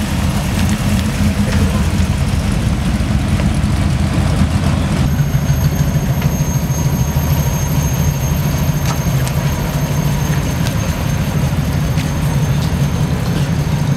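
Engines of classic American cars running at low speed as they drive past one after another. The sound changes about five seconds in as the next car comes by.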